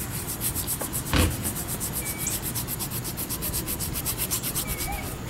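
Flat paintbrush scrubbing paint onto a canvas, a quick, even rubbing of about five back-and-forth strokes a second as white is blended into blue. A single thump about a second in.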